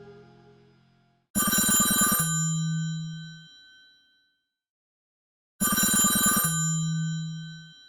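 Old-style telephone-bell ringtone from an iPhone: two rings about four seconds apart. Each is a rapid bell rattle under a second long that rings on and fades away.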